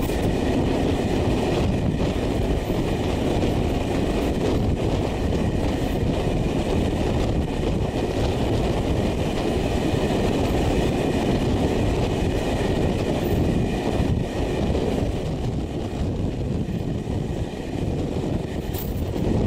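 Passenger train running at speed, heard from an open carriage window: a steady rolling noise of wheels on the rails mixed with rushing air.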